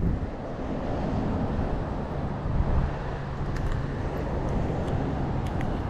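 Steady low outdoor noise of road traffic mixed with wind on the microphone, with a faint low hum through the middle seconds.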